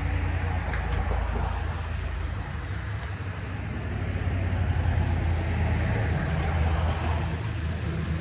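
Ceiling fan running: a steady low motor hum under a rushing of air.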